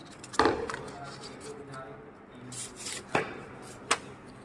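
Small steel lathe tool bits clicking and knocking in their slotted case as a hand handles them: a sharp clack about half a second in, then two lighter clicks near the end.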